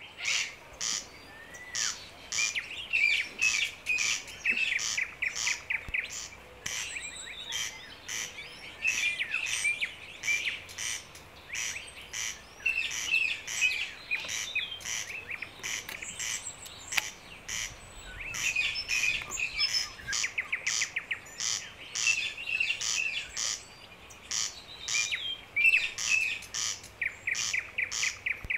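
Woodland birds singing and twittering, with many overlapping chirps and calls, alongside a run of short, very high chirps repeating several times a second.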